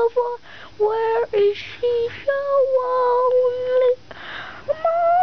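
Puppies whining: a string of high, drawn-out whines that slide up and down in pitch, one held steady for over a second about halfway through.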